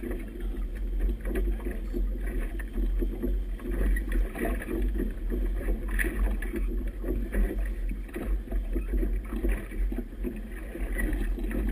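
Choppy river water slapping and splashing irregularly against a boat's hull, with a steady low rumble of wind buffeting the microphone.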